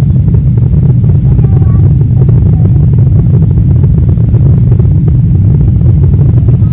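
Airbus A350 jet engines and runway rumble heard from inside the passenger cabin during the takeoff roll: a loud, steady, deep roar.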